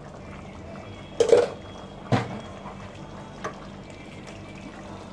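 Rice boiling in water in a large aluminium pot, a steady bubbling, while a slotted spoon stirs it; the spoon knocks sharply twice in the first half, then once more faintly.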